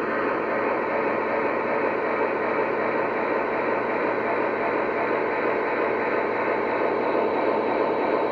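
Sound-effect of water gushing into a steam locomotive's tender, a steady rushing hiss played back by the QSI QS-3000 sound system through the model locomotive's small speaker, as part of its tender water-filling sequence.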